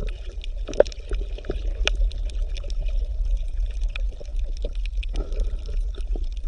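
Underwater reef ambience: a steady low rumble of water with scattered short clicks and crackles.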